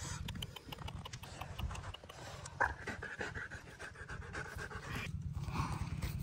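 A dog panting rapidly, a quick run of short breaths.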